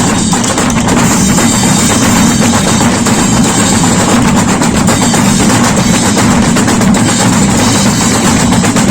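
Drums and percussion of a street band playing loudly, with dense strikes and no break.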